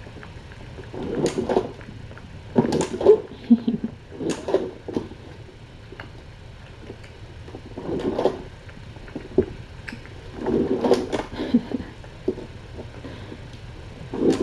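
Kittens playing with a string toy: soft thumps, scuffles and rustles in short bursts every second or few, over a low steady hum.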